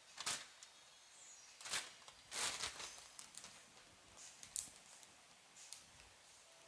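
Faint scattered rustles and clicks, about half a dozen short ones, the longest and loudest about two and a half seconds in.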